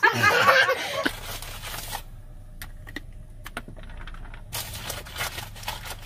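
A child's excited voice briefly, then the low steady hum inside a car cabin with scattered soft clicks and knocks.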